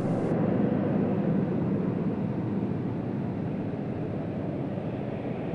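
Boeing 747-8's jet engines running: a steady rushing noise that eases slightly in level.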